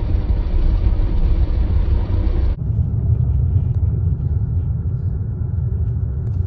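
Loud, steady low rumble that changes abruptly about two and a half seconds in, losing its higher part.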